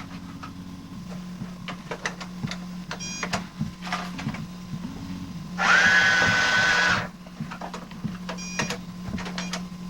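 Toy cash register play-set scanner giving one long electronic beep, about a second and a half, midway through. Around it come light clicks and taps of items and buttons being handled, over a steady low hum.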